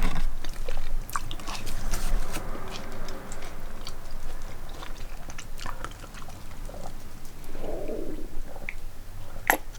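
Close-miked eating sounds: chewing and small mouth clicks, with a low stomach gurgle after a drink of water.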